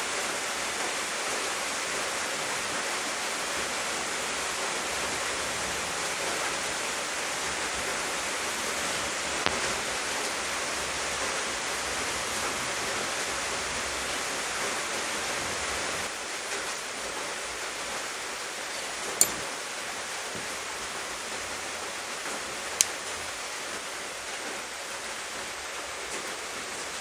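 A steady, even hiss that drops slightly about halfway through, with two sharp clicks later on from small hand tools being worked on a rebuildable atomizer's coil deck.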